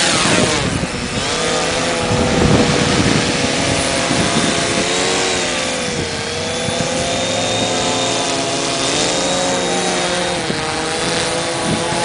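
Mariner waterproof quadcopter, built on DJI Phantom parts, hovering with its four motors and propellers buzzing steadily. Their pitch wavers up and down as it corrects against the wind. Gusty wind noise runs underneath.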